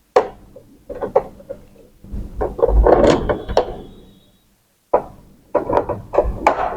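Clicks, knocks and scraping of hard plastic as the printer's cover panels are unscrewed and pried off, with a denser rattling stretch around the middle and a brief faint squeak, then another cluster of clicks near the end.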